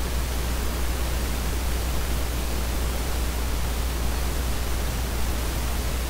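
Steady, even hiss with a low hum underneath, unchanging throughout: a constant background noise on the recording.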